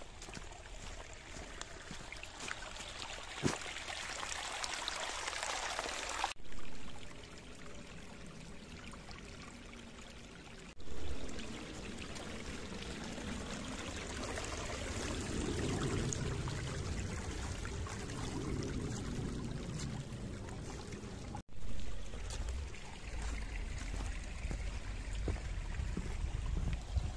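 A small gorge stream rushing and trickling over rocks, a steady wash of water sound that changes abruptly three times.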